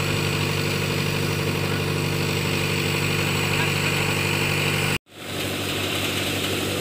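Farm tractor's diesel engine idling steadily, an even low throb. The sound cuts out for an instant about five seconds in, then the engine is heard again.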